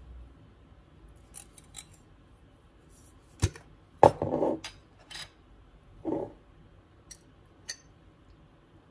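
A glass mayonnaise jar being opened: a sharp click and a short twisting scrape from its plastic lid about three and a half seconds in. Then a small metal spoon scrapes inside the jar, with a few light clinks against the glass near the end.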